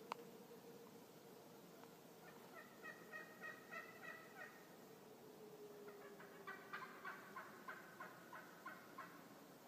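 Wild turkey calling: two faint runs of short repeated notes, about three a second, the first of about eight notes and the second of about a dozen. A sharp click right at the start.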